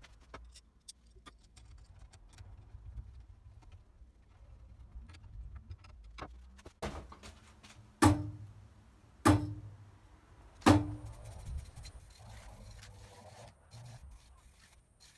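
Three shots from a homemade aluminium-riser compound bow, each a sharp snap of the released string with a short low ringing from the bow, a second or so apart.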